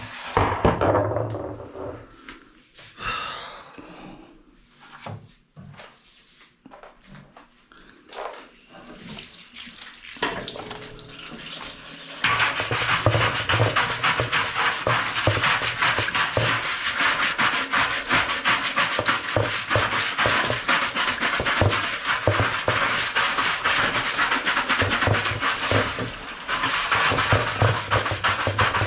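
Plastic washing-machine parts knocked and handled, then about twelve seconds in, a brush starts scrubbing them with fast, steady strokes that go on with a short pause near the end.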